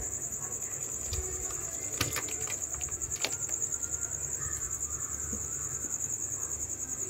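Crickets chirping in a steady, high, fast-pulsing trill, with a few light clicks about two and three seconds in.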